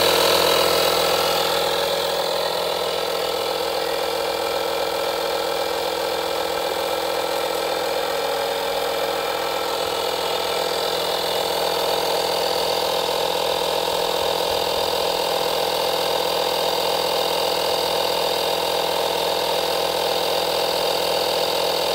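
Portable electric tyre inflator (small air compressor) running steadily as it pumps air into a car tyre through a hose on the valve, a little quieter after the first two seconds.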